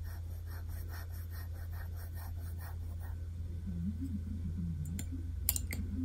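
Ink swab scrubbing fountain pen ink onto notebook paper in quick, even strokes, about four a second. The strokes stop after about three seconds, and a few light clicks follow near the end. A steady low electrical hum runs underneath.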